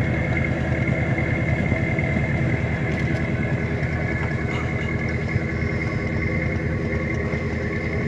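A boat's engine running steadily with a fast, even throb.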